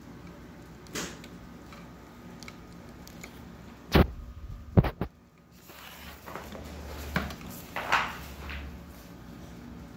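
Handling of a cardboard Monopoly game board and its cards: a click about a second in, two sharp knocks around four and five seconds, then a few seconds of rustling and scraping as the board is folded over.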